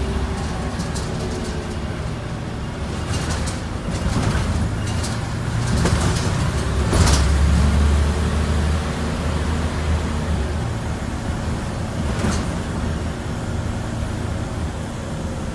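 Scania N94UB single-decker bus's rear-mounted diesel engine running as the bus drives, heard from inside the passenger cabin, swelling louder for a few seconds about halfway through. A few sharp rattles break through it.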